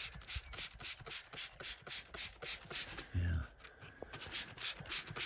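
Rapid rhythmic scraping strokes, about four to five a second, as a rock is scrubbed by hand. There is a short break with a dull low thump a little past halfway.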